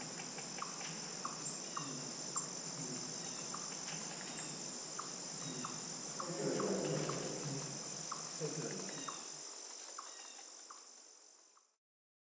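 Steady high-pitched insect chorus, crickets or similar, with small regular ticking chirps about twice a second, fading out near the end.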